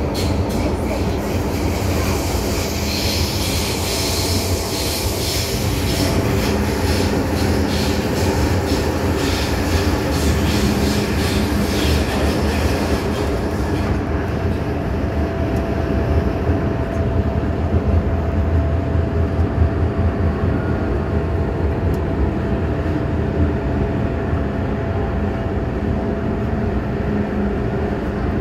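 Interior of an MTR M-Train electric multiple unit running through a tunnel: loud, steady wheel-and-rail rumble with rattling and hiss. About halfway through the hiss drops away, leaving the low rumble and a steady whine as the train runs into Tin Hau station.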